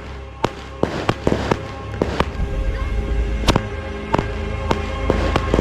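Fireworks going off in a quick, irregular series of a dozen or so sharp bangs over a low rumble that builds toward the end, with steady music playing underneath.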